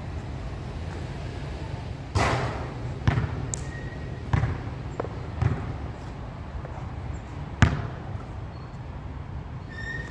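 Basketball bouncing on a hard outdoor court: about six separate sharp bounces at uneven intervals, with no steady dribbling rhythm.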